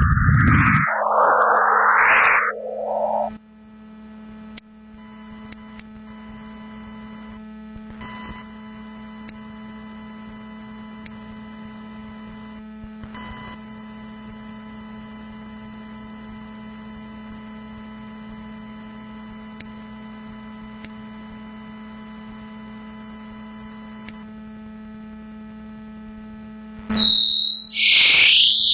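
Synthesized electronic tones rendered from a drawing by Coagula image-to-sound software: loud sweeping, looping pitch glides that stop about three seconds in. A steady low hum with faint held tones follows, and near the end a loud, high, wavering tone cuts in over low sounds.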